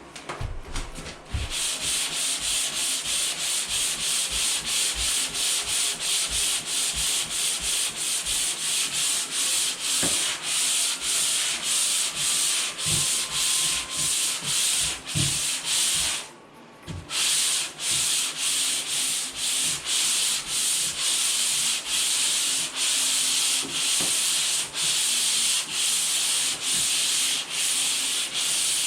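Dried drywall joint compound being sanded by hand: a steady run of rasping back-and-forth strokes, about two a second, with one short pause about sixteen seconds in.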